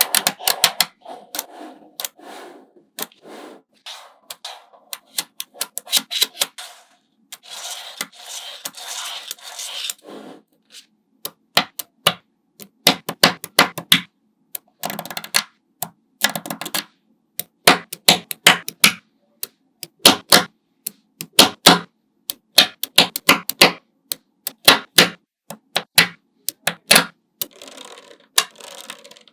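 Small magnetic balls clicking and snapping together one after another in an irregular run of sharp clicks, with a few longer stretches of rattling as loose balls roll and rub against each other.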